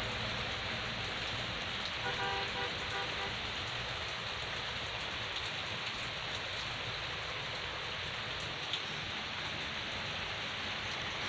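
Steady hiss of falling rain, with a faint short pitched sound about two seconds in.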